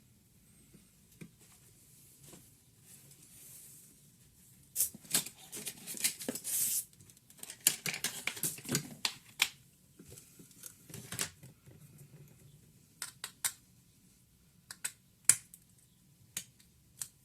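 Laptop parts being handled during disassembly: sharp plastic clicks and taps, with a stretch of scraping and rustling in the middle.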